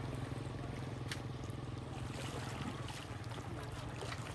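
A small engine hums steadily, with light splashing and trickling of water over it.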